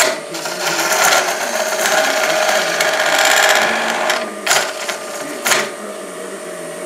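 Grizzly G0733 wood lathe running with a steady motor whine while a hand-held turning tool cuts a spinning cedar blank, shaping a sphere. The scraping of the cut is loudest over the first four seconds, followed by two short, sharp cuts about a second apart.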